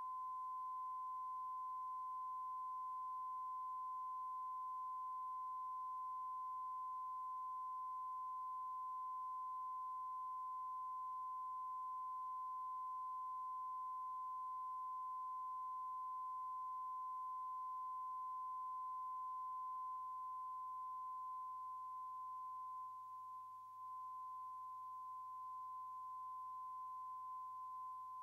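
Steady 1 kHz test tone, one pure pitch held unbroken over a faint low hum, slightly quieter from about twenty seconds in.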